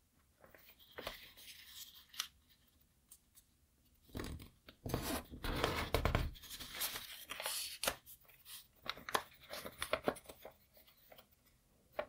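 Origami paper being folded by hand: rustling and crackling as the sheet is turned over and pressed, busiest and loudest from about four to six and a half seconds in, with scattered short crackles after.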